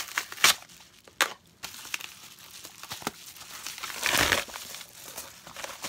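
Yellow padded paper mailer envelope being handled and opened: crinkling with a few sharp crackles in the first two seconds, then a longer rustle about four seconds in.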